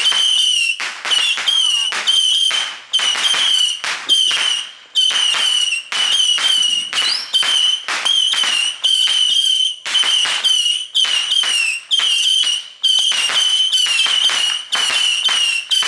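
Whistling fireworks going off in rapid succession: a long string of shrill whistles, each lasting about half a second to a second at a steady high pitch, with a short noisy burst at the start of each.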